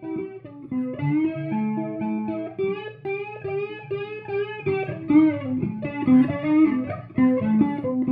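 Electric guitar music: a lead line of single notes, some of them bent in pitch, over lower held notes.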